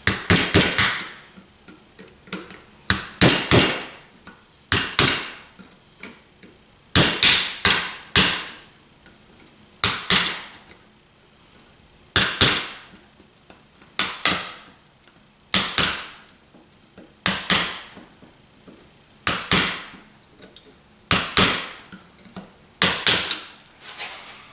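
Hammer blows on metal, pounding the copper windings out of a boiler pump's motor stator. Sharp, ringing strikes come about every one to two seconds, often two or three in quick succession.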